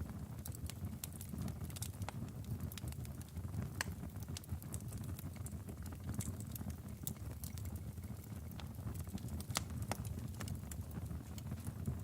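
Wood fire in a fireplace burning steadily, a low rumble of flames with irregular sharp crackles and pops from the logs.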